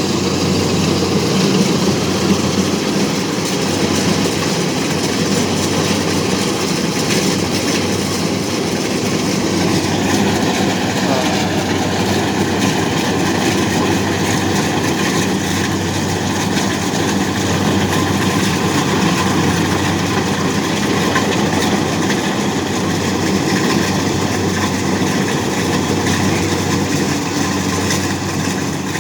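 An engine running steadily at an even speed, with a constant low hum and dense mechanical noise.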